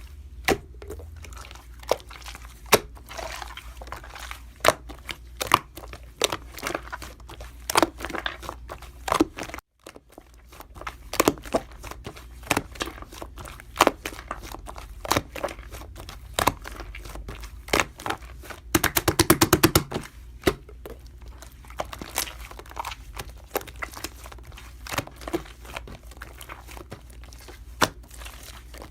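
Slime being squished and stretched by hand, giving many sharp crackling pops and clicks. A quick run of rapid pops comes about twenty seconds in.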